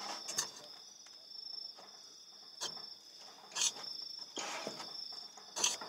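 Crickets chirping steadily in a high pitch, with a few sharp clicks and scrapes of a fork against a bowl as pasta is stirred.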